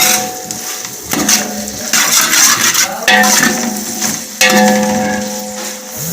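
Metal spoon stirring frying onions and green chillies in a metal cooking pot, knocking against the pot four times so that it rings after each knock, over a steady frying sizzle.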